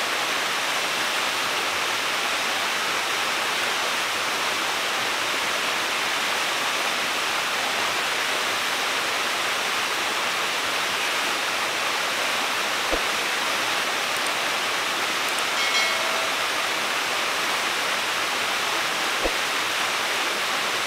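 Log Hollow Falls, a small waterfall, rushing steadily at close range. Two faint clicks and a brief short tone stand out over it about two-thirds of the way through.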